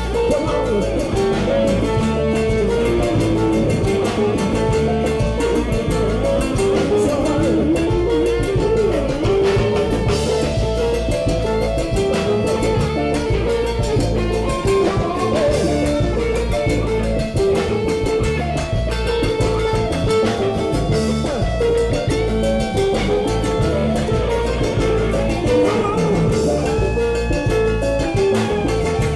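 Live Latin band playing an instrumental passage with a steady beat. Electric guitar, bass, keyboard, drum kit, congas and timbales, with maracas shaken along.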